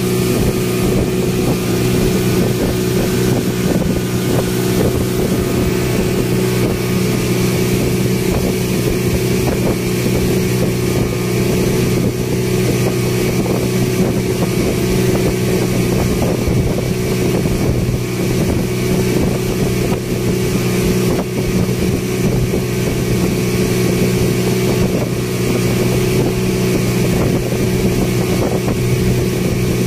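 Passenger speedboat's engine running steadily at cruising speed, a constant drone, with wind and water rushing past the open sides of the boat.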